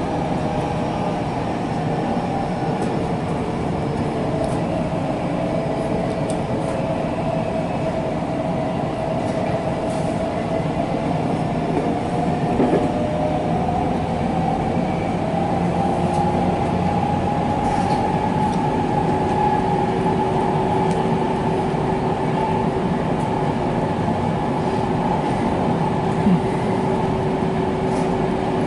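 Electric commuter train running along the line, heard from inside the front car behind the driver's cab: a steady rumble of wheels on rail with a motor whine that slowly rises in pitch, and a few light clicks.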